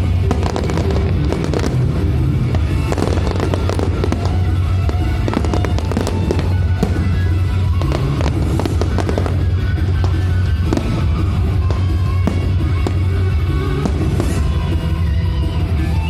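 Aerial fireworks going off in quick succession, many sharp bangs and crackles, over loud music with a heavy steady bass.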